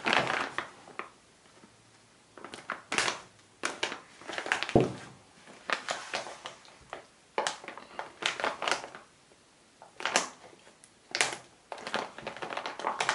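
Plastic parts bag crinkling in irregular bursts as it is handled and cut open with pliers, with one sharper click about five seconds in.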